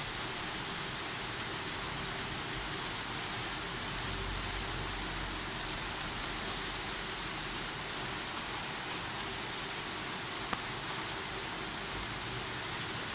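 Steady rain falling on tree leaves and a tiled roof, an even hiss, with one short click about ten and a half seconds in.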